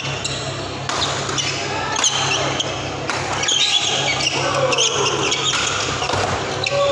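Badminton doubles rally: sharp racket hits on the shuttlecock about once a second, with sneakers squeaking on the court mat.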